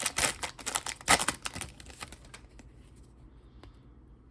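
Yu-Gi-Oh trading cards and a foil booster-pack wrapper being handled: quick rustling and flicking for about two seconds, then only faint rustles.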